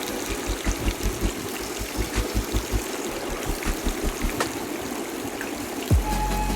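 Halved potatoes frying in hot oil in a karai: a steady sizzle with a few sharp pops.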